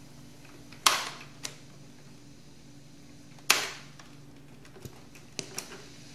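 Piano-key transport buttons of a Califone 5272-AV cassette player-recorder being pressed, each latching with a loud mechanical clunk, about a second in and again about three and a half seconds in, followed by a few lighter clicks near the end.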